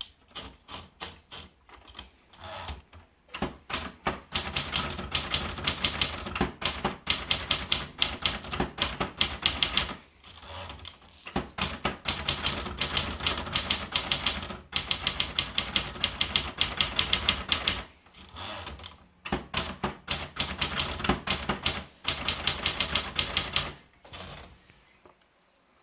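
Triumph Tippa portable manual typewriter being typed on: quick runs of sharp key strikes, about five or six a second, broken by short pauses, trailing off near the end.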